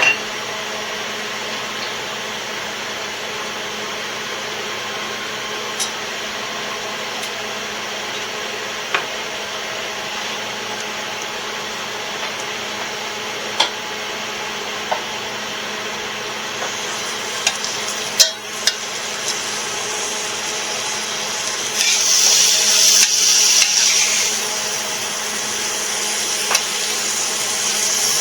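Chicken quarters sizzling on a hot grill: a steady hiss with scattered light clicks and knocks of handling. About three quarters of the way through the sizzle turns louder and brighter for a couple of seconds.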